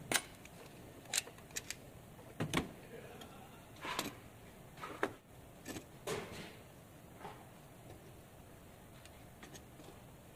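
Metal parts and hand tools being handled at a bench vise: a string of irregular sharp clicks and knocks, thinning out after about seven seconds.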